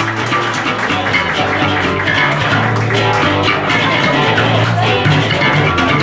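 Live rock band playing an instrumental passage, with a prominent electric bass guitar line over drums and guitar, featured just after the bassist is introduced.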